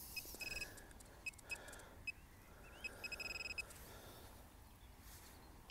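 A metal detector's handheld pinpointer beeping: short high beeps of one steady pitch, then a longer held beep about three seconds in, as it is worked through the dug soil to locate a small metal target.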